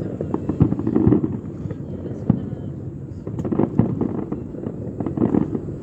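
Aerial fireworks bursting: a rapid, irregular string of bangs and crackles, thickest near the start and again around the middle.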